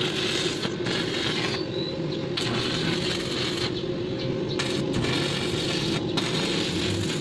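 Stick (arc) welding on a steel window grill: the arc crackling and sizzling steadily, with a few short breaks as the electrode is lifted.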